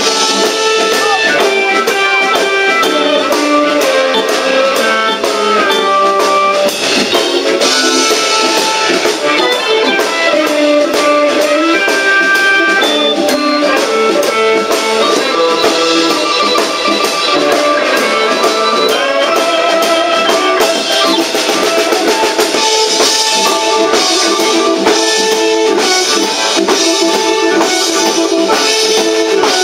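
Live electric blues: an electric guitar played along with a harmonica held in a neck rack, over a steady drum beat.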